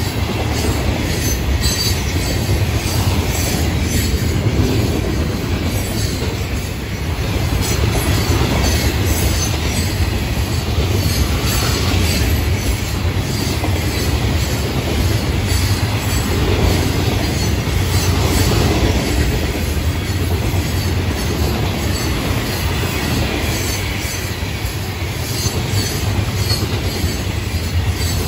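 Florida East Coast Railway freight train's hopper cars and box cars rolling past close by: a steady low rumble of steel wheels on rail, with a regular run of clicks as the wheels cross the rail joints.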